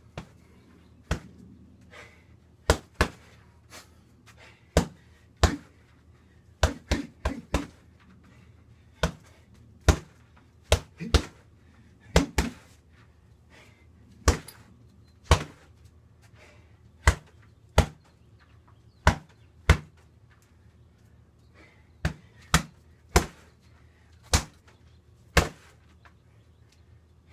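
Strikes landing on a long heavy bag: sharp smacks in irregular combinations of one to four hits, with short pauses between combinations.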